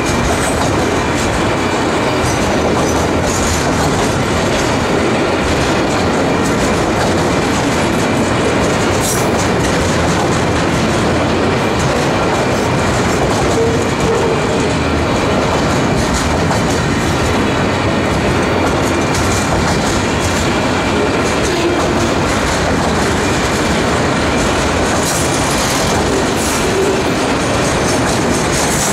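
Loaded autorack freight cars rolling past at close range: a loud, steady rumble of steel wheels on rail with a thin, steady high ring over it.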